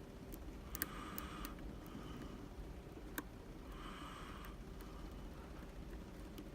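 Scattered small sharp clicks and ticks of a lock pick and tension wrench working the pins of a Medeco lock cylinder, the loudest about a second in and another about three seconds in. Two short, soft sniffs of breath through the nose come between them.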